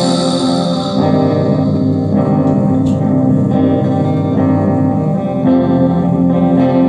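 Guitar playing chords in an instrumental passage of a song, the chords changing every second or two.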